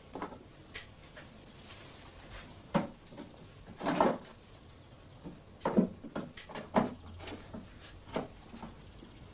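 Scattered knocks and clatter of objects being handled, like a drawer or cupboard, with about a dozen short, sharp sounds; the loudest and longest comes about four seconds in.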